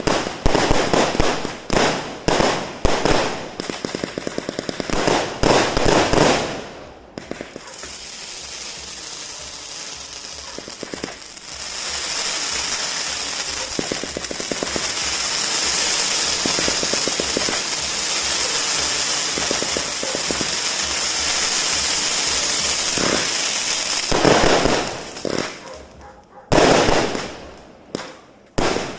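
An 897-shot consumer fireworks cake firing. First comes a quick run of sharp shots and bursts, then rapid crackling, then from about twelve seconds in a long steady hissing crackle. Sharp bursts return near the end.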